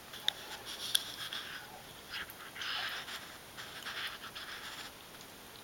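Adult Persian cat licking and grooming a young kitten's fur: short spells of scratchy rustling, with two sharp clicks in the first second.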